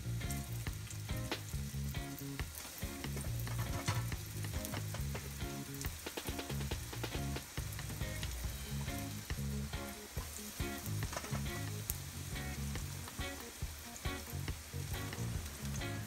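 Flour-dredged eggplant slices frying in hot oil in a nonstick pan: a steady sizzle full of quick crackles and pops.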